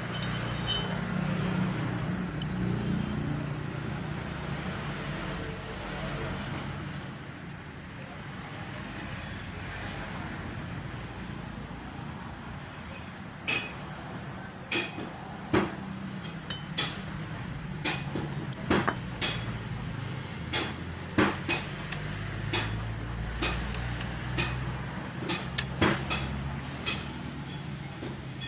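Yamaha Mio 125 scooter's single-cylinder four-stroke engine running, with sharp metallic knocks from about halfway through, coming irregularly up to about once a second. The knocking is taken for piston slap.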